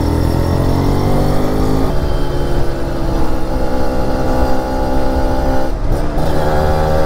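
Motorcycle engine accelerating under the rider. Its pitch climbs, drops at a gear change about two seconds in, climbs again, and dips once more with a short break near six seconds.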